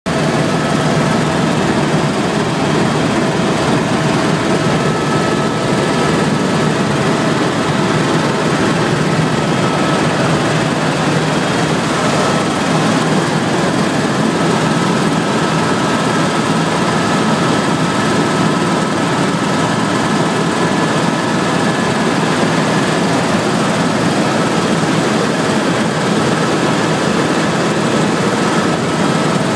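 Helicopter in flight, heard from inside the cabin: a steady, loud engine and rotor noise with a few faint steady whining tones above it.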